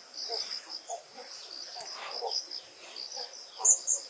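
Forest ambience: a steady, high-pitched insect drone with many short bird chirps scattered through it, and one brief, sharp, high chirp near the end.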